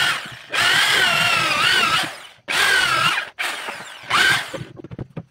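Electric drill running into the wood of a chair frame in short runs, stopping and starting about four times. Its motor whine dips and wavers as the bit bites into the wood. A few light clicks follow near the end.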